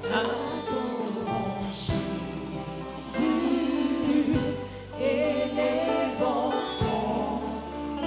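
Church choir singing a gospel worship song with long held notes over sustained instrumental accompaniment.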